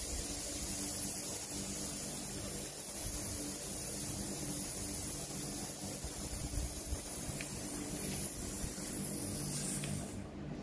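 Air hissing steadily out of a basketball as it is deflated; the hiss cuts off abruptly near the end.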